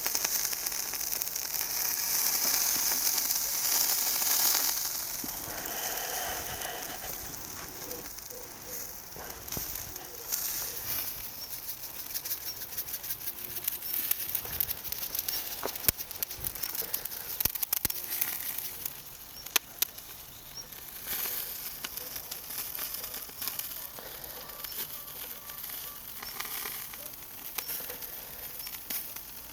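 Duck meat skewers sizzling over a charcoal fire, a steady hiss with crackles and a few sharp pops.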